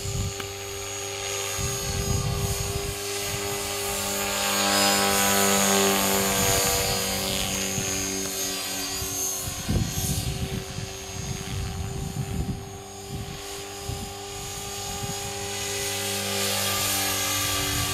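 Align T-Rex 500 DFC electric RC helicopter in flight: a steady whine of the motor and gears over the hiss of the rotor blades. It swells loudest about five seconds in, then settles.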